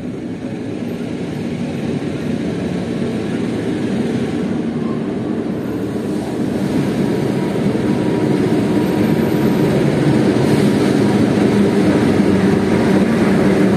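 Diesel locomotive hauling a passenger train, approaching through the station. Its engine drone grows steadily louder as it draws near.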